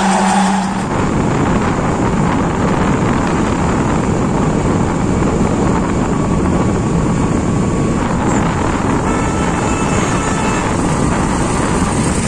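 A moment of music is cut off almost at once, then steady wind rushing over the microphone and the running noise of a moving vehicle on the road carry on loudly.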